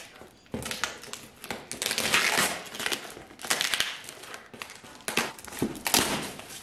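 Packing tape being peeled and ripped off a cardboard box by hand, in several long pulls.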